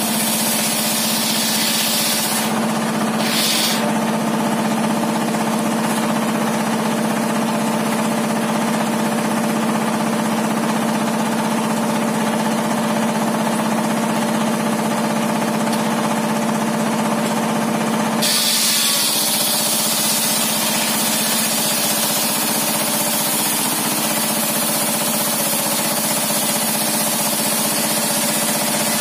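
Homemade sawmill table saw running at a steady speed: a loud, even drone with a strong low hum. Its upper sound changes about two seconds in and changes back about eighteen seconds in.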